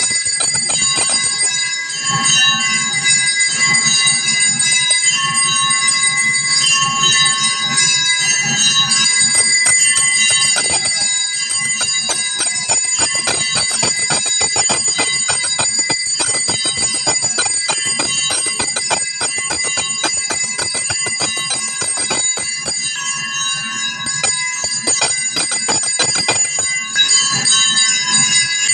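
Brass temple hand bell (ghanta) rung continuously with rapid clapper strikes, its ringing held steady throughout, as during an arati lamp offering.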